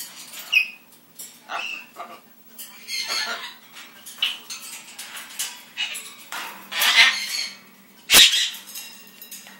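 Blue-and-gold macaw giving a series of short squawks and calls, with a sharp knock about eight seconds in as the bird lunges against the metal cage bars.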